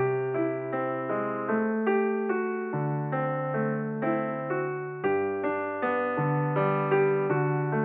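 Background music: a slow solo piano piece, single notes struck at an even pace over low bass notes that change every second or so.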